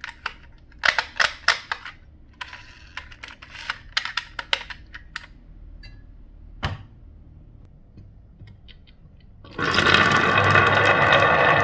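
Marbles clicking and clattering through a wooden marble run, in quick runs of sharp clicks with a single knock near the middle. Near the end a loud, continuous rolling rumble sets in.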